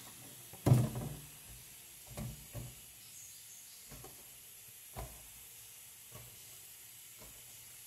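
A bundle of filled plastic sacolé bags being handled: plastic rustling and bags bumping together, with one louder muffled bump about a second in and a few faint crinkles and taps after it.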